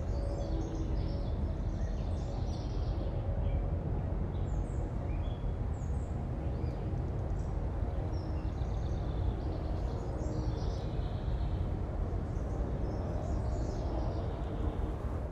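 Outdoor ambience: birds chirping on and off over a steady low rumble.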